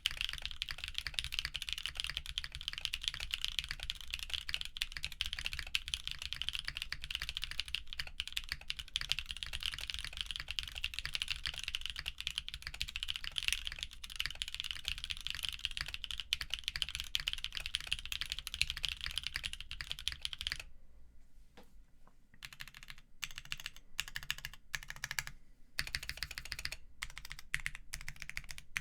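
Typing on a mechanical keyboard with linear Kailh Burgundy stems in lubed MX Black housings, mounted on a polypropylene plate with PBT keycaps. Fast, continuous typing gives way about two-thirds of the way through to slower, separate keystrokes.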